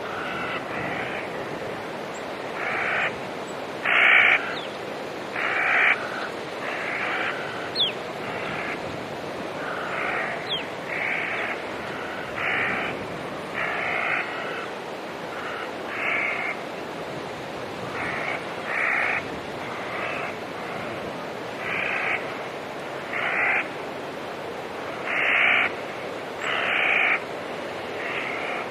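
Crows cawing over and over, with harsh calls about once a second, some in pairs, over a steady hiss. Two brief thin whistled notes, from another bird, come about a third of the way in.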